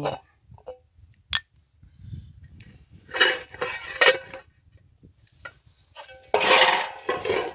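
Aluminium cooking-pot lid clinking, scraping and ringing as it is lifted off the pot, with a sharp click about a second in and a louder clatter near the end. The pot is being opened after its slow finish on the coals to check the pulao.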